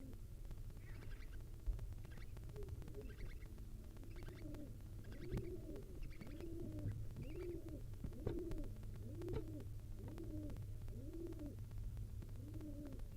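A dove cooing over and over, a series of low rising-and-falling coos about one a second.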